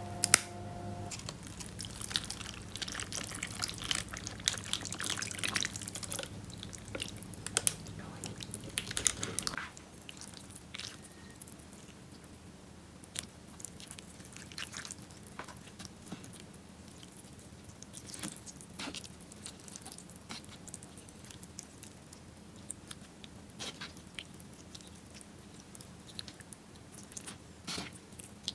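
Disposable wooden chopsticks snapped apart with one sharp crack, then the chopsticks stir and lift noodles in a paper bowl of soupy broth, with soft wet liquid sounds and light clicks and taps. The handling is busy over a steady low hum for the first ten seconds or so, then the hum stops and the taps grow quieter and sparser.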